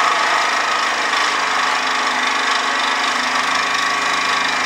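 Reciprocating saw cutting through a rusted steel exhaust pipe, running steadily without a break, its tone rising slightly about a second in.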